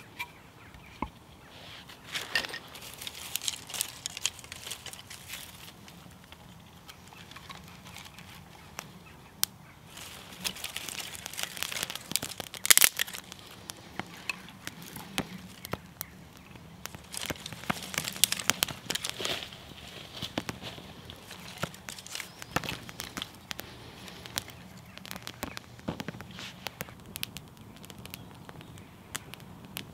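Small campfire of dry twig kindling catching over a burning tinder card, crackling with irregular sharp pops and snaps, busiest around the middle.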